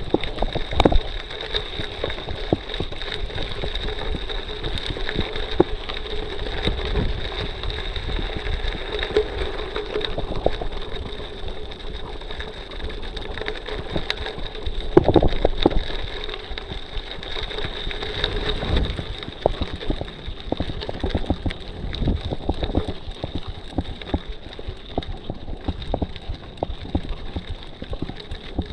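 Mountain bike climbing slowly on a gravel road: tyres crunching over the loose surface, with frequent knocks and rattles as the bike jolts over rough ground, loudest for a moment about halfway through.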